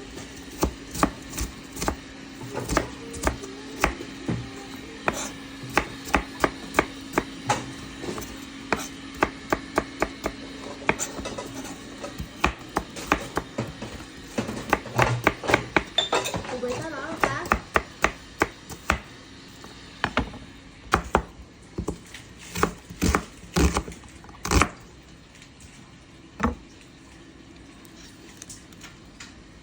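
Knife chopping food on a cutting board: irregular sharp strikes, often in quick runs, that stop near the end.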